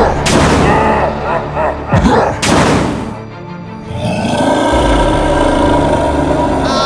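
Cartoon sound effects over music: two loud noisy bursts about two seconds apart, with a low growl bending in pitch. From about four seconds in, steady synth music takes over.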